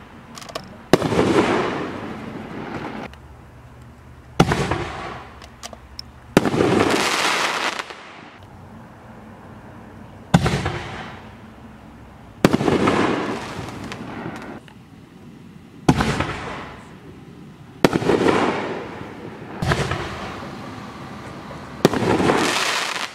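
5-inch consumer canister shell fireworks firing one after another: about nine sharp reports, a few seconds apart, each trailing off over a second or two.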